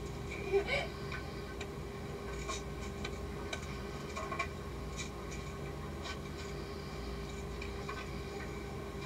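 A toddler handling a plastic toy on a carpet: scattered light clicks and rubbing, the most distinct about half a second in, over a steady hum.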